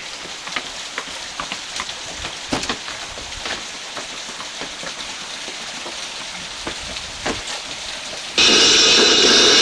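A steady hiss dotted with scattered crackles and pops, like rain or crackling. Near the end it cuts off suddenly into a much louder, harsh, steady noise.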